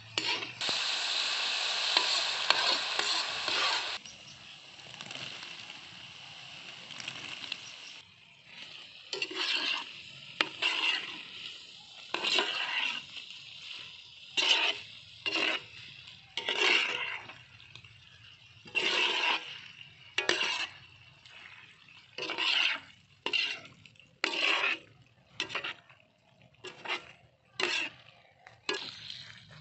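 Sizzling from a hot iron wok of curry just after water is poured in, loud for the first few seconds, then fading. From about eight seconds in comes a run of separate strokes, roughly one every second or two: a wooden spatula scraping the wok as it stirs quail eggs through the thick sauce.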